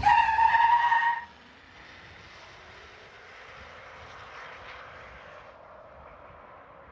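GMC Hummer EV pickup launching hard from a standstill: a sudden loud, high-pitched tone lasting just over a second. It is followed by a steady hiss of its tyres and electric drive that fades slowly as the truck pulls away.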